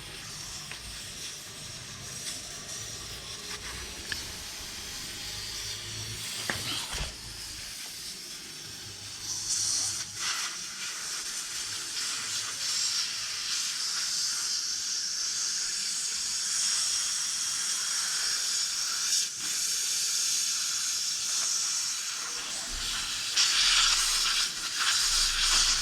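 Air hissing steadily out of a tubeless motorcycle tyre's open valve stem, its valve core removed to deflate the tyre. The hiss grows louder toward the end.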